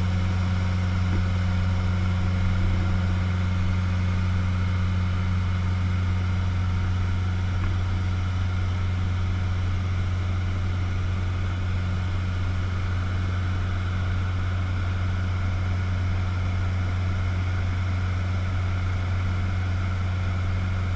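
Cessna 150's Continental O-200 four-cylinder engine and propeller running steadily in cruise flight, heard inside the cabin as a constant low hum with an even rush of noise over it.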